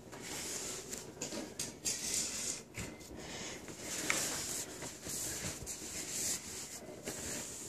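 Hands handling a fishing rod and line close by: irregular rubbing and scratching with a few light clicks.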